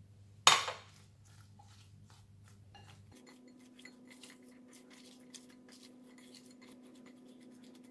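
A single sharp clink about half a second in, then a run of faint, irregular wet clicks and squelches as a silicone spatula tosses sliced cucumber, onion, carrot and pineapple in vinegar dressing inside a glass bowl.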